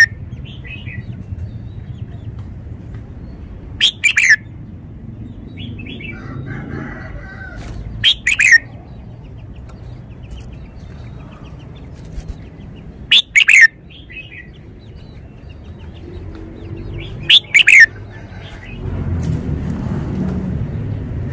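Caged red-whiskered bulbul singing: four loud, short phrases about four to five seconds apart, each a quick run of a few falling notes, with softer chirps in between. Near the end the bird flutters its wings with a low rustling.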